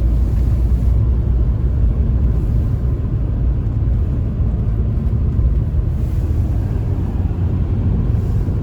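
Steady low rumble of car road and engine noise heard inside the cabin, cruising at highway speed, about 110 km/h, on a snow-covered road.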